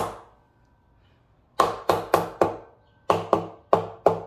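A soft-faced mallet tapping an aluminium Honda H22 cylinder head down onto the block to seat it on its dowel pins. The blows come about three a second: a group of four after a pause of about a second and a half, then a steady run, each with a short metallic ring.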